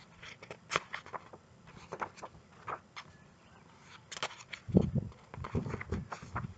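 Paper page of a picture book being turned, with scattered light crackles and rustles. From about three-quarters of a second before the end of the fifth second, a series of low bumps and knocks comes as the book is handled against the microphone.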